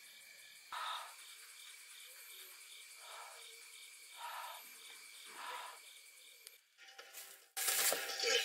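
Crickets chirping steadily in a quick pulsing trill on a cold night, with several short breathy puffs of a person exhaling. Near the end a louder film soundtrack from a projector cuts in.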